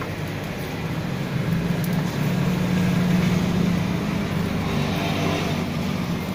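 Road traffic: a motor vehicle's low engine hum swells from about a second and a half in, peaks midway, then slowly fades.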